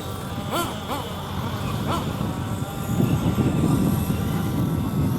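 Motor noise: a rumbling low drone under short rising-and-falling whines in the first two seconds. After that comes a steady engine tone with several overtones, slowly falling in pitch, while the rumble grows louder about three seconds in.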